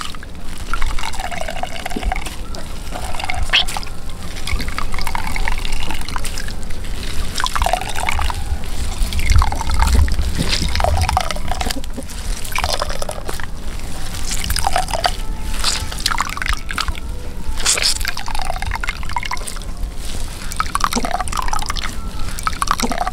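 Grated arrowroot pulp being squeezed by hand, the starchy water splashing and dripping into a container below. The wet splashes come over and over, roughly every second or two.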